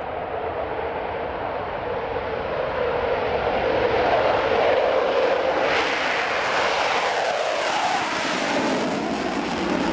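Aircraft engines passing by, growing louder and sharper about six seconds in, then dropping in pitch as the aircraft goes past.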